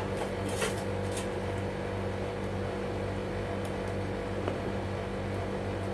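Steady low electrical hum, with a few faint clinks and scrapes from a ladle as thick idli batter is poured onto a stainless-steel plate.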